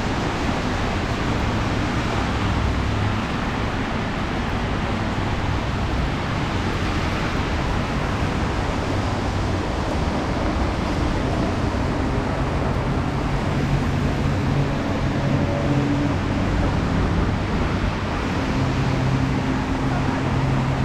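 Steady traffic on a wet city street: a continuous hiss of tyres on wet asphalt, with the low hum of engines coming up in the second half.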